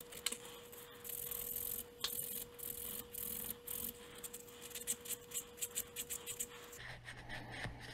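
Sandpaper rubbing over a small turned wooden lure body by hand, in a series of short hissing strokes that come quicker near the end, about three a second.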